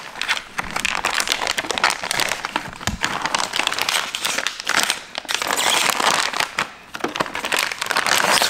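Clear plastic vacuum-sealer bag crinkling and crackling in irregular bursts as a chunk of raw tuna is pushed into it and handled.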